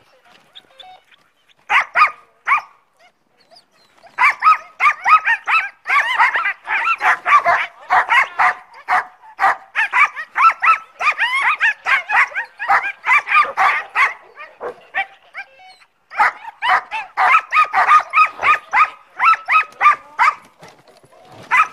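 Sled dogs barking in quick, overlapping volleys of high-pitched barks, with short pauses near the start and about two-thirds of the way through.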